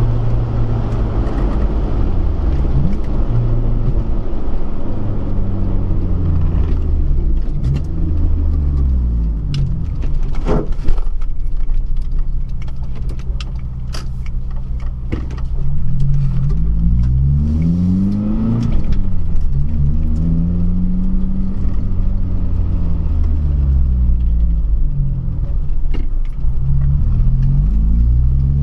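2002 Honda Civic Si (EP3) engine accelerating through the gears, its pitch climbing and then dropping at each upshift, several times over. A steadier stretch in the middle carries a few sharp clicks.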